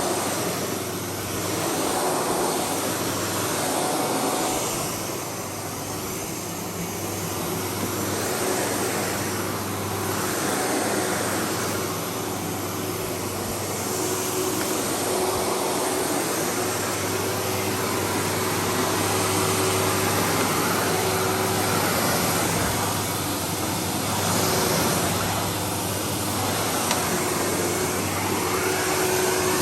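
Windsor SR15 vacuum cleaner running steadily on berber carpet, its whir swelling and dipping every few seconds as it is pushed back and forth.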